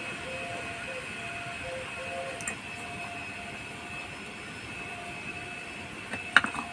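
Steady mechanical drone in the background, with a faint click about two and a half seconds in and a single sharp knock near the end.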